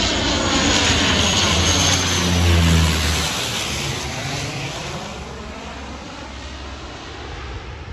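De Havilland Canada Dash 8 twin-turboprop airliner passing low overhead on landing approach. The engine and propeller drone swells to its loudest about two to three seconds in, drops in pitch as the aircraft goes over, then fades away.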